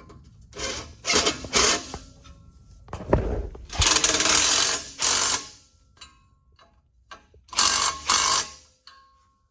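A small motor-driven tool runs in four short bursts, with faint thin squeaks in the gaps between them.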